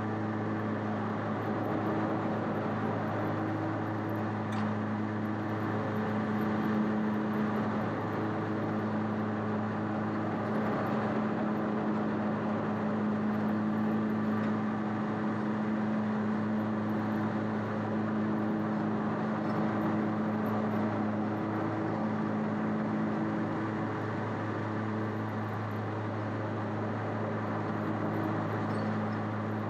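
Bad Boy ZT Elite zero-turn mower running while mowing, its engine holding a steady drone.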